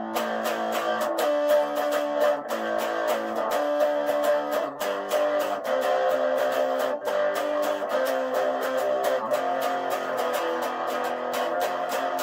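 Electric guitar music: a solid-body Epiphone electric guitar picked in quick, even strokes, playing chords and ringing notes.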